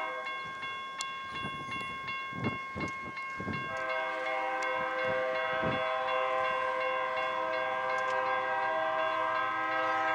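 BNSF diesel freight locomotive sounding its multi-chime air horn in a long, steady chord as it approaches. The lower notes of the chord drop out for about two seconds, then come back about four seconds in and hold.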